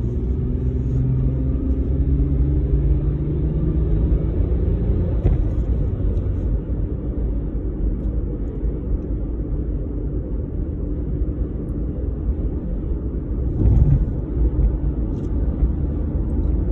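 Car cabin sound while driving: a steady low rumble of engine and tyre noise, with the engine note rising over the first few seconds as the car speeds up. A brief low thump comes a little before the end.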